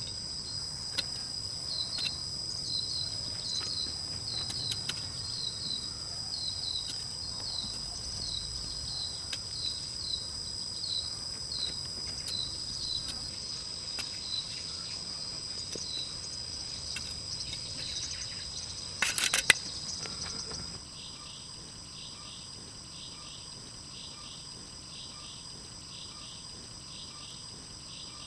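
Night insects, crickets among them, chirping in a steady chorus of high trills and repeated chirps. A cluster of sharp clicks comes about two-thirds of the way through. Shortly after, the chorus switches abruptly to a quieter, different pulsing chirp.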